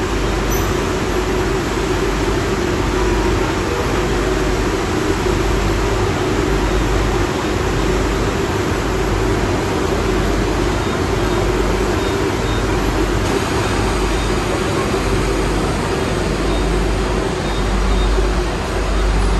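Steady, unbroken din on a car ferry's enclosed vehicle deck: the ship's machinery drones low underneath, mixed with the engines of motorcycles and trucks driving off.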